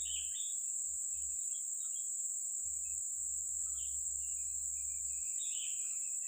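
Insects buzzing in a steady, high-pitched drone, with a few short bird chirps: one at the start, one in the middle and one near the end.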